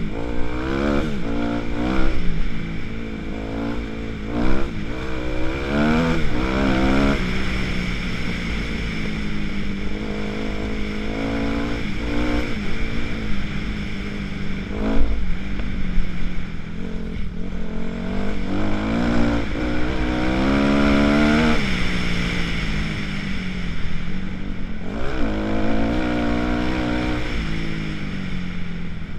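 2006 Kawasaki KX250F single-cylinder four-stroke dirt bike engine under way, its revs rising and falling again and again as the rider opens and closes the throttle through the gears. Low wind rumble on the microphone runs underneath.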